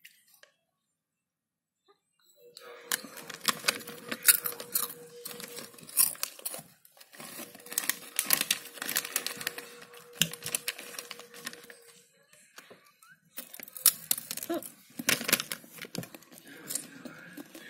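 Crinkly metallised Pola Snack packet rustling and crackling as it is squeezed and tipped up to the mouth. The crackling starts about two and a half seconds in and comes in two long stretches with a short break between.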